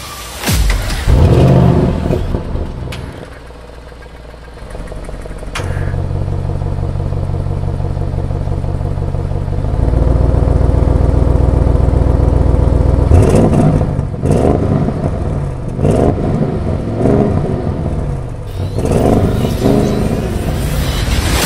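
Audi RS7's twin-turbo 4.0-litre V8 heard at the exhaust: a loud rev flare about a second in that dies away, then a steady idle, then a string of short, sharp throttle blips through the last third.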